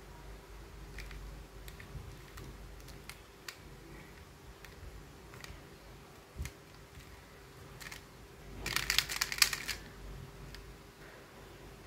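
Plastic Square-1 puzzle being turned by hand: scattered single clicks of layer turns and slices, then a quick rattling run of clicks about nine seconds in, the loudest part.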